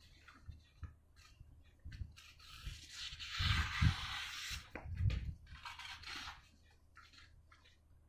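A sheet of paper being sliced with a Victorinox knife in a sharpness test: paper rustling and the hiss of the blade cutting through, the longest cut about three seconds in, with a few soft handling bumps.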